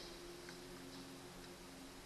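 Faint, sparse clicks of a door lock assembly being handled and its small parts moved, over a steady low hum.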